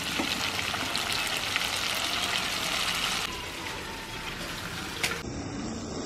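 Masala-coated Amur fish frying in hot oil: a steady sizzle full of fine crackling pops. It eases a little about three seconds in and turns to a softer hiss near the end.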